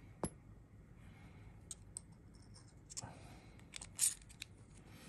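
Small sharp metallic clicks and ticks from resistance wire and a handheld coil-winding jig being handled while a coil is wound. The clicks are sparse: one about a quarter second in, a few scattered through the middle, and the loudest about four seconds in.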